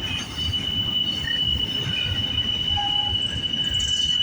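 Freight cars of a double-stack intermodal train rolling past with a steady low rumble and a continuous high-pitched wheel squeal.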